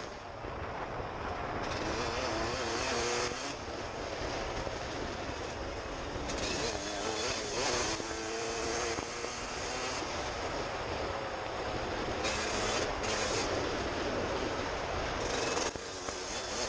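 Suzuki RM125 two-stroke dirt bike engine running under way, its pitch rising and falling as the throttle opens and closes. A steady wind rush on the helmet camera runs under it.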